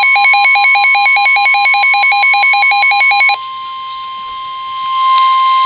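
A phone's rapid pulsing alert beeps over a steady single-pitched alert tone, the NOAA Weather Radio 1050 Hz warning alarm for a severe thunderstorm warning. The beeping stops about three seconds in, and the steady tone carries on alone, growing louder near the end.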